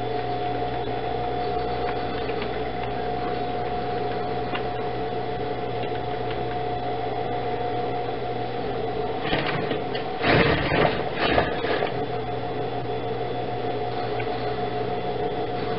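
Industrial sewing machine humming steadily. About nine to twelve seconds in comes a louder, clattering burst of noise.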